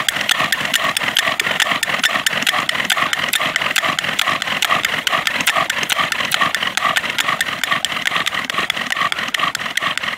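Bow drill in use: a cedar spindle spun by a sawing bow, squeaking and grinding in the socket of a damp cedar hearth board in a fast, even rhythm of strokes.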